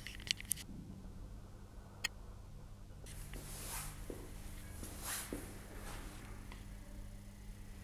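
Quiet indoor room tone with a steady low hum, a couple of sharp clicks near the start and another about two seconds in, and a few soft rustling swells after that.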